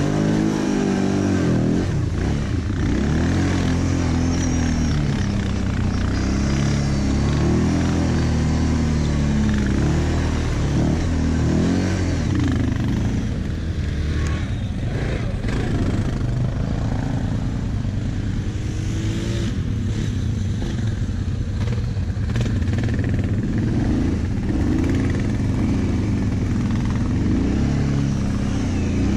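ATV (quad bike) engine under way, its revs rising and falling with the throttle as it drives along dirt tracks. At the start it splashes through a muddy puddle.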